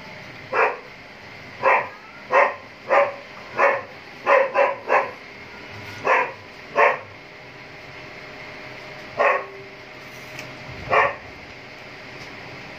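A dog barking in about a dozen short, separate barks, several in quick runs and then a couple more spaced out, over a faint steady background hum.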